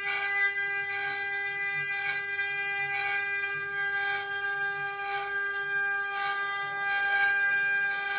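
Multi-spindle 4-axis CNC router's spindle motors running with a steady high whine, carving twisted wooden balusters on rotary axes. A rasp of cutting recurs about once a second.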